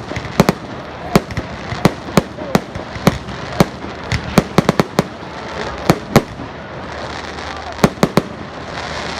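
A fireworks display going off: about twenty sharp bangs at an uneven pace, with a quick cluster a little before the middle. The bangs stop about a second before the end, leaving the background noise.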